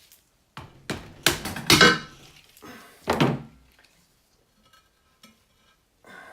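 BMW R80 airhead oil pan being knocked and worked free of its gasket: a run of hard metallic thunks and knocks, loudest about two seconds in, then a few light clicks.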